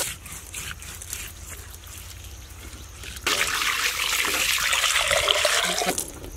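Water poured in a stream onto a large gutted fish and splashing off its flesh as hands scrub and rinse it. The pouring starts suddenly about three seconds in and stops shortly before the end, after quieter handling sounds.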